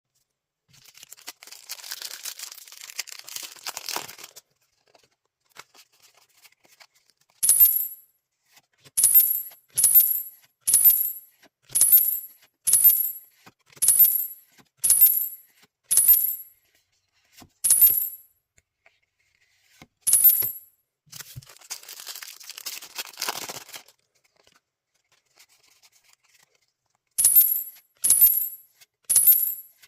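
Foil booster-pack wrapper crinkling and tearing open. Then comes a run of short, bright clinking hits about one a second, as cards are revealed one by one. More wrapper crinkling comes midway, followed by a second run of the same hits near the end.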